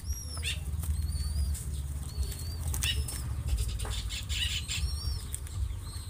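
Two zebra dove chicks flapping their wings in quick, repeated flurries as they jostle to feed from a hand-held pouch, with short high peeps scattered throughout.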